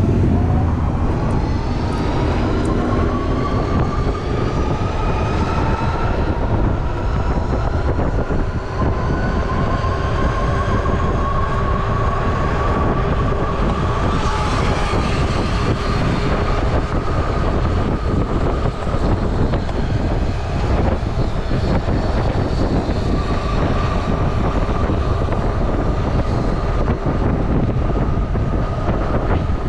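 Electric bike motor whining while riding. Its pitch rises gently over the first several seconds as it picks up speed, then holds steady. Wind rushes on the microphone throughout.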